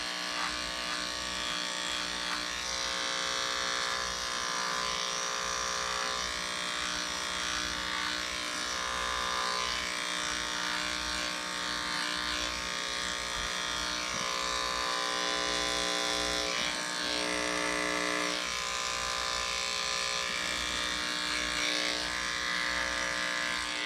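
Wahl electric dog-grooming clippers running steadily while trimming a dog's coat: one even buzzing hum throughout.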